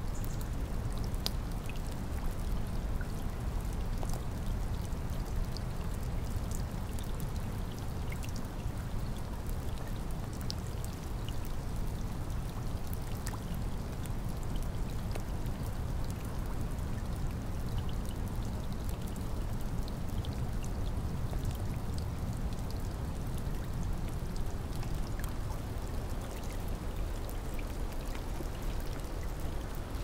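Steady heavy rain: a dense, even wash of falling water, heaviest in the low end, with scattered sharp drop ticks over it.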